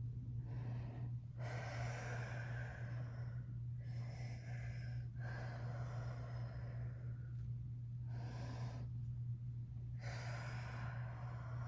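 A woman breathing deeply, about five long breaths in and out, over a steady low hum.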